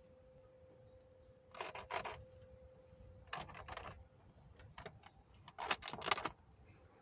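Jaguar XE seat squeaking in several short bursts, about every second and a half: the seat squeak that is traced to a trim part.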